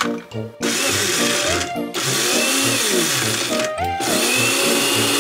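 Small electric mini chopper whirring as it minces peeled garlic cloves. It runs in three pulses, starting about half a second in, with short breaks about two and four seconds in, over background music.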